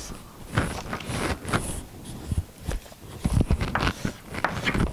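Chalk on a blackboard, tapping and scraping in short irregular strokes as lines are drawn.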